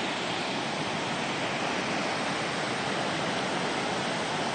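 Floodwater of Bastedo Creek rushing steadily over and through a washed-out gravel road, spilling down in a small waterfall. The creek is swollen with snowmelt and heavy rain.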